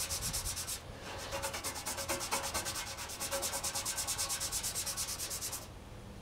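Brush scrubbing a computer case with water in fast back-and-forth strokes, about seven a second. The strokes pause briefly about a second in and stop near the end.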